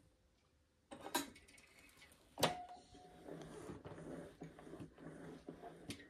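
Clicks and a knock from the handle of a Hoover Conquest upright vacuum cleaner being released and lowered. The loudest knock comes about two and a half seconds in, with a short metallic ring. After it comes a faint, steady low hum with light crackling.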